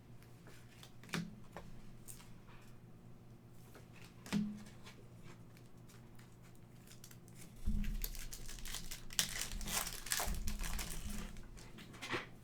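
Quiet handling of trading cards with a few light clicks. Then, about eight seconds in, the wrapper of a Panini Prizm football card pack is torn open and crinkled.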